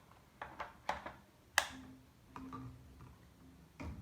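Several sharp plastic clicks and knocks, the loudest about a second and a half in, as the vacuum cleaner's nozzle attachments and push-button catches are handled; the motor is not running.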